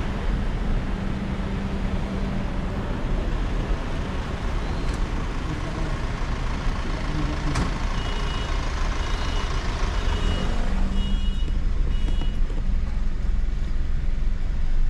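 Car engine idling with low road rumble as the car creeps forward in slow traffic. A run of short high-pitched beeps sounds from about eight to twelve seconds in, with a single sharp click just before it.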